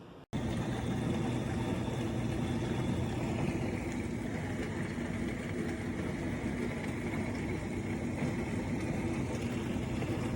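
Portable countertop dishwasher running: a steady motor hum under a broad hiss, which cuts in abruptly just after the start.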